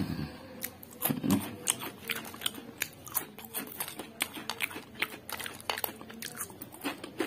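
Potato chips (Lay's Spanish Tomato Tango) being bitten and chewed close to the microphone: many sharp, irregular crunches, several a second.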